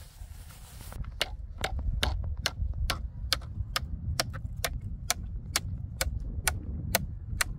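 Even, sharp ticking starting about a second in, a little over two ticks a second, over a low rumble.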